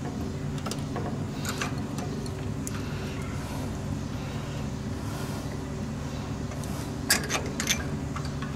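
Light clicks and taps of a carburetor and its throttle linkage being handled and fitted onto a small engine, the loudest few clicks coming close together near the end, over a steady low hum.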